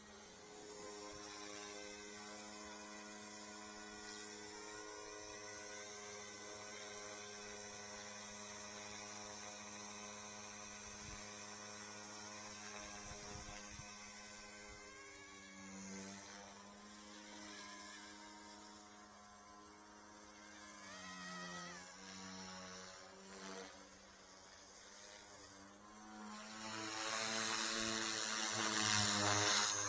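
Eachine 180 direct-drive RC helicopter flying on a single rotor blade: a steady buzzing hum from its motor and rotor. The pitch dips and wavers with throttle changes about halfway through, and the sound grows louder near the end.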